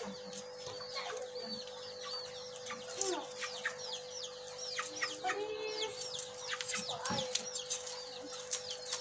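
Chickens clucking and chirping: many short, high chirps throughout, with a few lower calls among them, over a steady hum.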